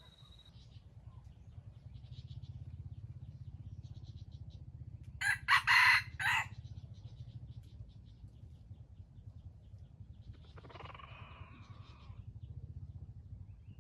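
Wild jungle-chicken rooster crowing close by in a short, loud call of about four clipped pulses, then a fainter crow answering about five seconds later, over a steady low hum and faint bird chirps.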